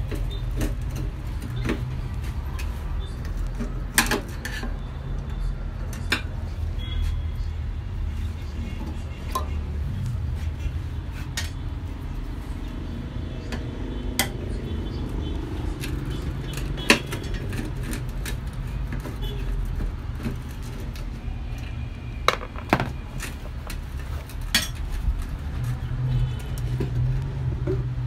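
Scattered sharp metallic clicks and clinks at irregular intervals as a screwdriver works the mounting screws of a microwave oven's magnetron and the magnetron is worked loose, over a steady low background rumble.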